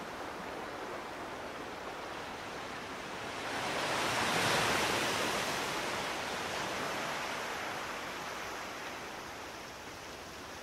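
Steady outdoor rushing noise that swells to its loudest about four and a half seconds in, then slowly fades.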